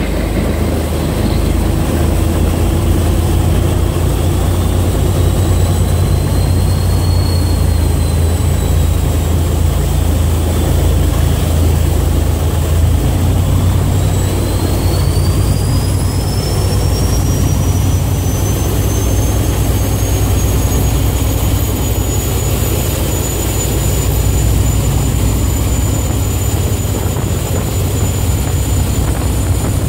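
Large unsilenced motor torpedo boat engines running hard at speed, a heavy low rumble under a high turbocharger whine. About halfway through the whine climbs for several seconds, then holds steady.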